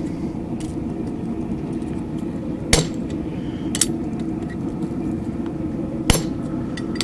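A hammer drives a chisel into a steel bar to cut feather grooves: three sharp metallic strikes, spaced one to two seconds apart, with a fainter tap near the start, over a steady background hum.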